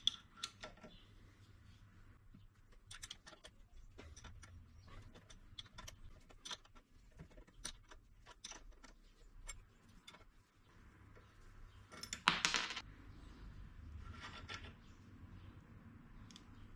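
Light metallic clicks and clinks of a steel wrench working the nut on a shock absorber's piston rod held in a bench vise, with one louder clatter about twelve seconds in.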